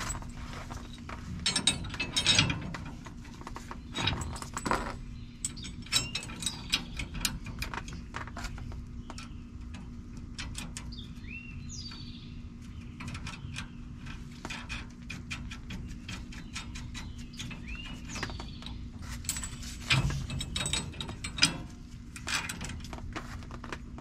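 Ratchet wrench clicking in runs while nuts are run down on a helper-spring U-bolt, with a few louder metal knocks about two seconds in and near the end. Faint bird chirps come in here and there.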